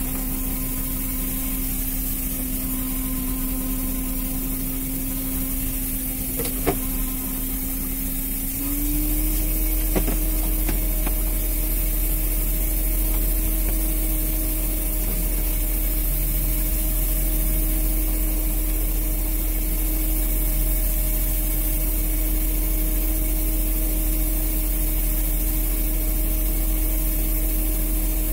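Steady drone of a fishing boat's engine and deck machinery running, stepping up slightly in pitch and getting a little louder about nine seconds in. A couple of short knocks stand out, one about seven seconds in and one about ten seconds in.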